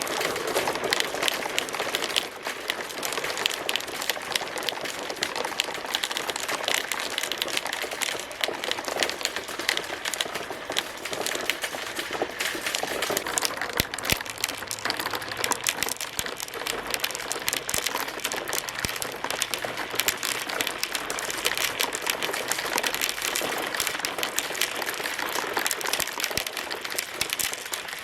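Many marbles rolling and clattering down a marble run track: a dense, continuous patter of small clicks and clacks.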